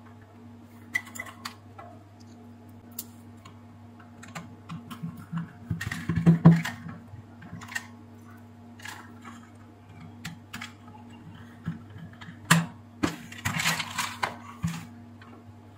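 Irregular clicks and taps of the steam iron's plastic housing parts and a screwdriver being handled during reassembly. The clicks come in a quick flurry about six seconds in, the loudest part, and again near the end, over a steady low hum.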